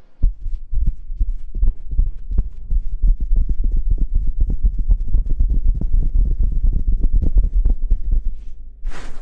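Rapid, irregular muffled thumps from hands tapping and pressing on a sensitive ASMR microphone, several a second, that stop suddenly near the end.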